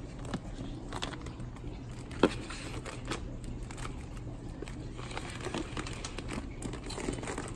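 Plastic fish-shipping bags rustling and crinkling as they are handled and set into a styrofoam-lined shipping box, with scattered small clicks and one sharp knock about two seconds in, over a steady low hum.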